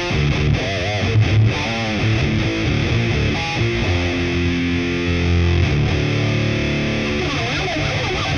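Epiphone Les Paul Classic Worn electric guitar played through heavy distortion from an amp simulator. It opens with a lead line of bent notes and wide vibrato, moves to held notes and chords about four seconds in, then returns to wavering bends near the end.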